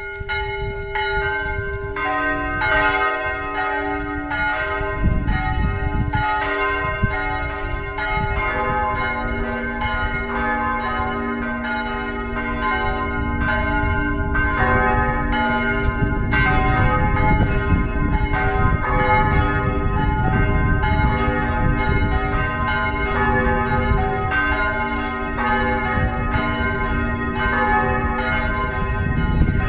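Full peal of a church's four swinging bronze bells, ringing together in an unsynchronised pattern of strokes. The bells join one after another, the deepest coming in about eight seconds in.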